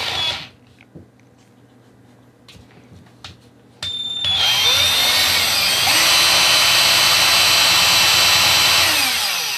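Cordless drill motor running with its bit pressed onto a stripped tri-point screw. It runs briefly at the start, stops with a few clicks, then starts again about four seconds in. It runs steadily at speed and winds down, falling in pitch, near the end.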